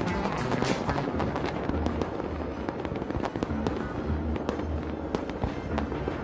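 Fireworks bursting and crackling in quick succession, many sharp bangs close together, over music with a deep bass line.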